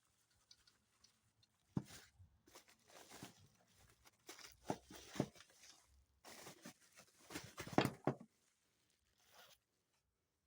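Packaging being torn open and rustled by hand to get at a new carburetor: irregular crackling and tearing, loudest about eight seconds in.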